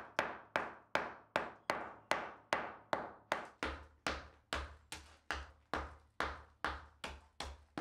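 Hand hammer striking and breaking saw-cut pieces of a concrete floor slab. It gives sharp, evenly paced blows, about two and a half a second.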